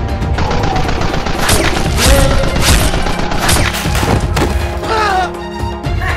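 A rapid burst of gunfire sound effects, several shots a second for about three seconds starting about a second and a half in, over background music.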